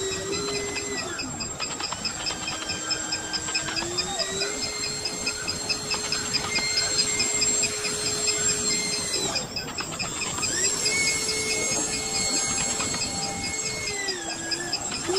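Electric motor of a homemade radio-controlled amphibious car whining as it drives through water, its pitch stepping up and down as the throttle changes and cutting out briefly about nine seconds in.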